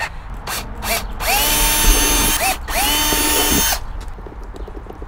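Cordless drill run in two short bursts, its motor whine rising in pitch as it spins up and dropping as it stops, after a few light clicks.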